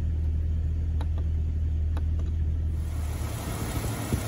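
1999 Jeep Cherokee's 4.0-litre straight-six idling steadily, freshly fitted with four-hole fuel injectors while its computer relearns the fuel mapping. First a deep drone heard from inside the cabin, then, about three seconds in, the engine heard at the open engine bay with more hiss and the injectors ticking away.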